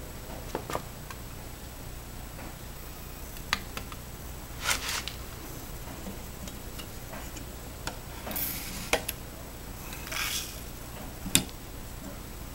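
Shotgun shells being handled at a small hand-lever shell-loading press: scattered light clicks and knocks of plastic hulls with brass bases against the press, with a few short rattles. The sharpest click comes near the end.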